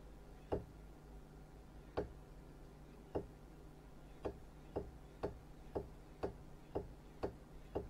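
Voice-coil actuator from a GenePix 4000B microarray scanner's scan stage, driven back and forth by a function-generator sine wave, knocking against its end stops. Short, sharp clicks speed up from about one a second to about two a second as the drive frequency is raised.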